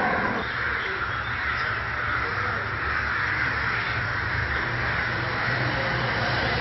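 A large flock of crows cawing all at once, many calls overlapping into a steady, dense din, with a low steady hum underneath.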